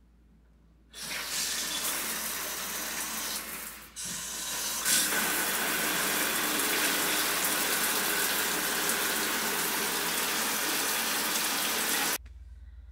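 Water running hard and steadily. It starts about a second in, dips briefly about four seconds in, and cuts off suddenly near the end.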